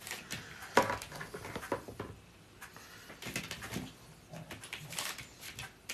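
Kitchen utensils clinking and knocking at irregular intervals as steamed boilies are lifted out of the pot.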